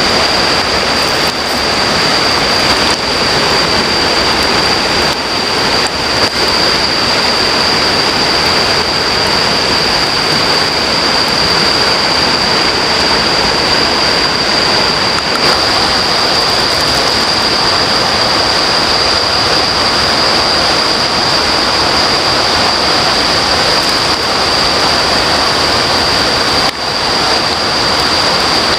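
A river rushing steadily, with a steady high-pitched tone running through it.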